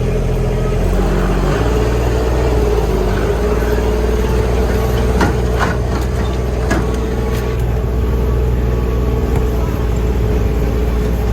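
Kubota utility vehicle's engine running steadily, heard from on board, with a few knocks partway through.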